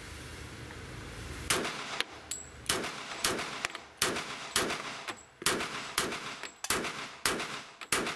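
Heckler & Koch HK45 Compact Tactical .45 ACP pistol firing a steady string of about ten shots, roughly one every two-thirds of a second, starting about a second and a half in. Each shot echoes briefly off the walls of an indoor range. A steady hum comes before the first shot.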